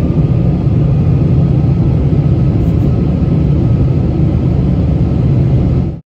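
Steady low rumble of engine and air noise inside an airliner's passenger cabin, with a faint steady whine above it.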